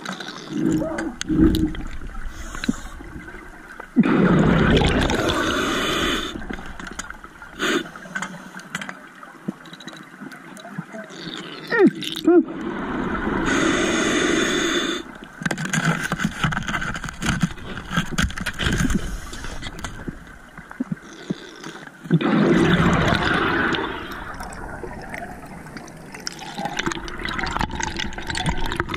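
A scuba diver breathing underwater through a regulator: three long bubbling rumbles of exhaled air, about nine seconds apart, with quieter hiss between them.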